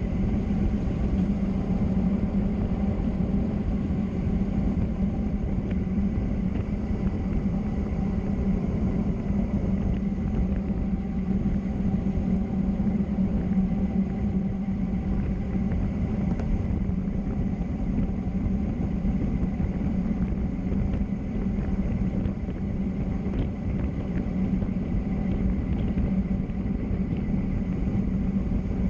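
Steady rumble of road and wind noise while moving downhill, with a constant low hum and no break or change.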